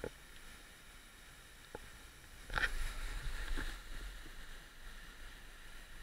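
Faint, muffled rush of a mountain waterfall. About two and a half seconds in, a louder rumbling rustle on the microphone lasts roughly a second and a half as the camera is swung round.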